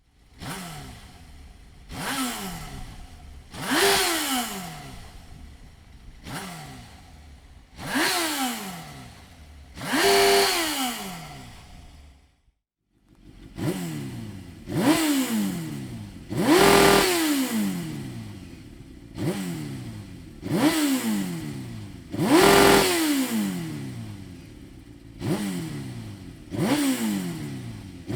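Suzuki GSX-R 1000 K3 inline-four with a Dominator slip-on exhaust, idling and revved in short, sharp throttle blips that each climb quickly and fall back to idle, about every two seconds. The sound breaks off briefly about twelve seconds in, then the blips resume.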